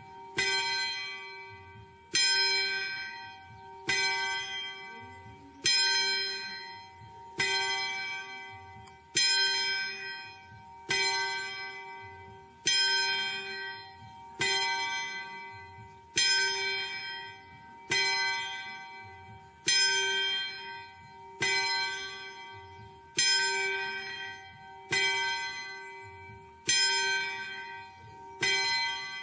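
A single church bell tolled at a slow, steady pace, about one stroke every second and three quarters, each stroke ringing on into the next over a steady low hum.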